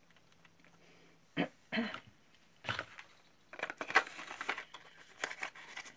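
Handling noise: a small cardboard product box and a plastic tube being picked up off the table, heard as several short rustles and knocks.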